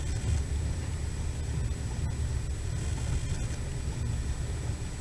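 Passenger train running, heard from inside the carriage: a steady low rumble of wheels on rails, with a couple of faint clicks.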